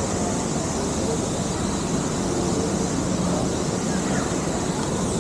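Steady outdoor background noise: a continuous rushing hiss with a faint high, even band above it and no distinct events.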